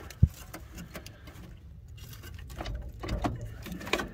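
Handling noise as a hand prods around a rusted-through car floor pan: one sharp knock about a quarter second in, then scattered light clicks and rattles.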